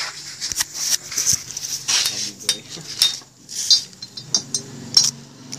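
Scattered sharp metallic clinks and clicks of tools and metal engine parts being handled, over a faint low hum.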